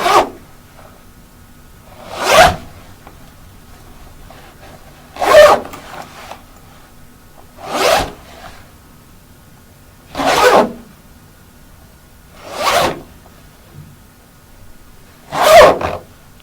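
Jacket zipper pulled in short strokes: six quick zips about two and a half seconds apart, each lasting about half a second, with the tail of another zip at the very start.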